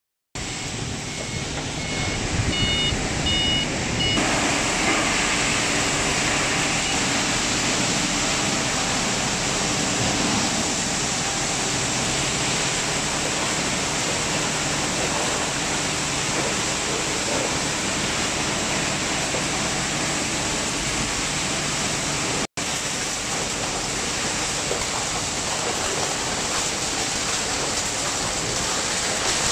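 Plastic recycling line machinery running: a steady, loud, even roar from the conveyors and shredder. A few short high beeps sound between about two and four seconds in.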